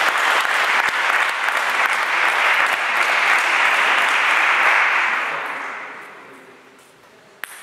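Spectators applauding after a rally, the clapping dying away over the last couple of seconds. A single sharp tap of a table tennis ball comes near the end.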